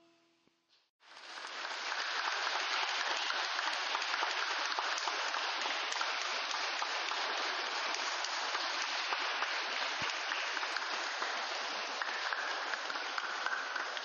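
Church congregation applauding, a steady, dense clapping that starts about a second in.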